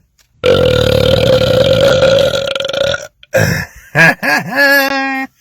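A man belching loudly: one long belch of about two and a half seconds, then a few shorter burps, the last held on a steady pitch.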